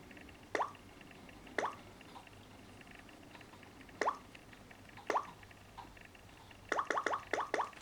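Samsung Galaxy phone tone made of synthetic water-drop plops. Single plops come every second or so, then a quick run of many plops near the end.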